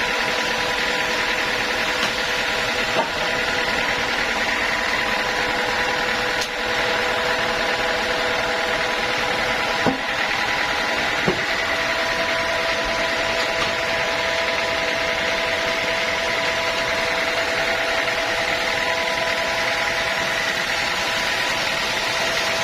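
Sawmill saw running steadily: a constant mechanical whine over a loud, even hum, with a few faint knocks.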